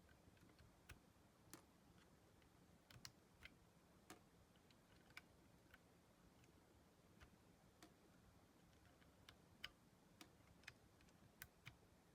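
Faint, irregular small clicks and ticks from handling a Keychron Q9 Plus mechanical keyboard while a Banana switch is taken out. About twenty sharp clicks are spaced unevenly, some in quick pairs.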